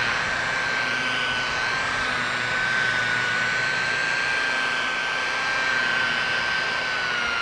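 Electric rotary polisher with a foam pad running steadily while buffing rubbing compound into a plastic headlight lens: a steady high motor whine that wavers slightly in pitch, over a hiss. This is the compound's cutting stage.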